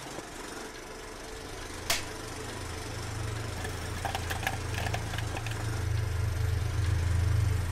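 Sound effects for an animated intro logo: a low rumbling drone that grows louder, a sharp hit about two seconds in, and a cluster of quick clicks around the middle.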